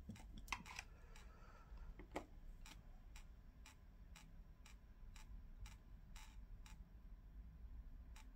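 Near silence with a faint, even ticking about twice a second over a low room hum.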